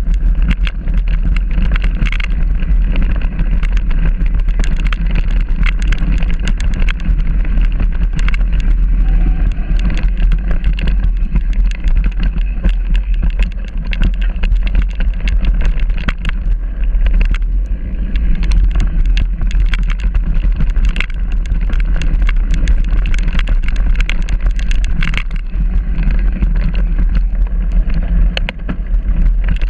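Mountain bike riding over a stony dirt track, heard from a camera mounted on the bike: a steady loud rumble with a constant scatter of rattling clicks and knocks from the bike jolting over the gravel.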